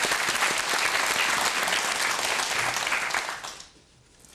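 Studio audience applauding a correct answer. The clapping fades out about three and a half seconds in.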